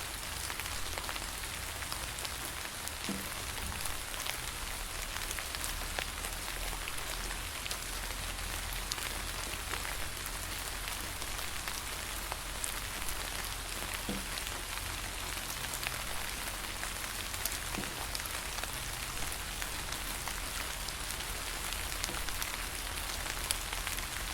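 Steady rain pattering on leaves, a constant hiss with many small drop ticks scattered through it, over a faint low rumble.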